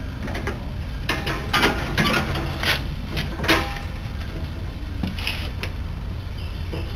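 Homemade three-cylinder compressed-air engine running under load, driving a lawnmower vehicle that pulls a loaded trailer: a steady low rumble with a cluster of louder, sharp clacking noises from about one to four seconds in and another about five seconds in.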